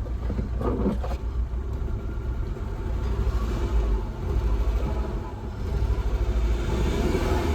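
Tata Zest petrol engine running just after a start, its speed swelling and sagging unevenly. The engine is missing and hunting from a misfire on cylinder 4.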